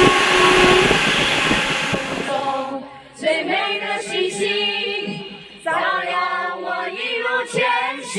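A train's horn sounds a steady chord that stops about a second in, over the rushing noise of the passing train, which fades out by about three seconds. Then a group of people sing together into microphones in two phrases.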